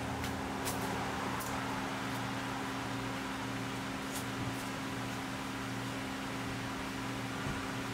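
A steady low machine hum with a few light clicks in the first half.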